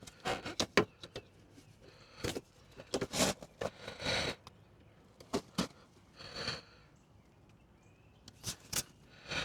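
Scattered light clicks and knocks of hands working a plastic headlight bulb socket and wiring connector loose from the headlight housing, with a few short rasping noises in between.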